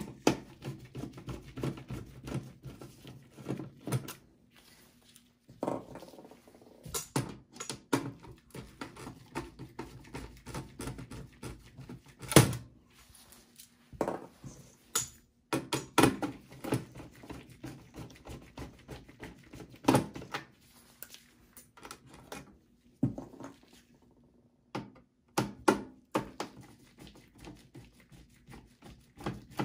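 Phillips screwdriver backing out motherboard screws in a steel PC case: irregular light clicks and taps of the driver tip and the screws on sheet metal, with one sharper knock about twelve seconds in.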